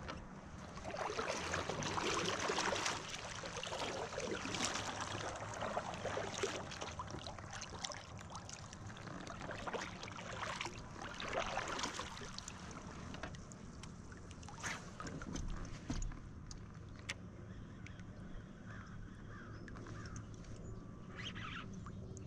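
Kayak paddle strokes, the blades dipping and splashing water in a series of surges through roughly the first twelve seconds, then quieter water drips with a few light clicks.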